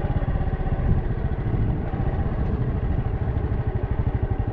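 Small 125 cc-class motorcycle engine running steadily, a fast even beat of low exhaust pulses close to the microphone.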